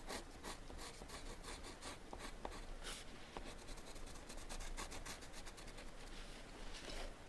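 Graphite drawing pencil scratching faintly on paper in many short, quick strokes as lines are drawn.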